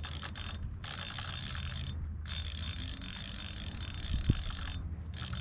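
Spinning reel being cranked, a fast whirr of its gears in spells with short pauses between turns. A dull thump about four seconds in.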